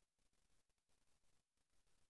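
Near silence: only a very faint background hiss.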